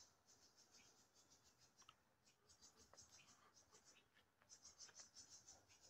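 Near silence, with only faint, rapid, high-pitched ticking in the background.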